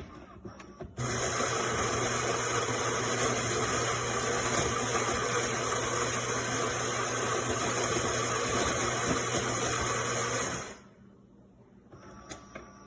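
Philips 5400 Series fully automatic espresso machine running for about ten seconds: a steady whirring with a low hum underneath, starting about a second in and stopping suddenly.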